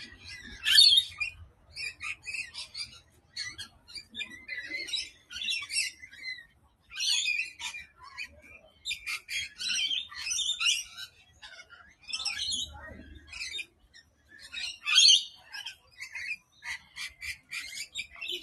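A flock of lorikeets calling in a flowering tree: many short, shrill screeches and chatters overlapping, in bursts with brief lulls.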